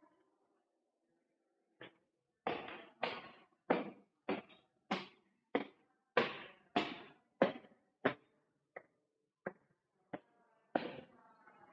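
Footsteps climbing hard stairs, echoing in an enclosed stairwell: a steady run of sharp steps, about one and a half a second, starting about two seconds in.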